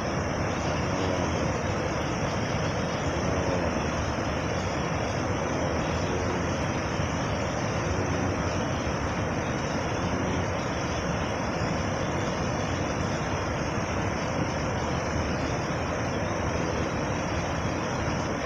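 Steady rushing noise, even throughout, with faint distant voices now and then in the first half.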